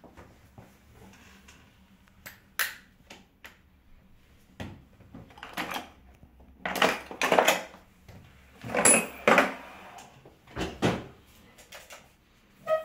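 Irregular knocks, clatter and rustling of objects being handled, in separate bursts of up to half a second, the loudest ones around seven and nine seconds in.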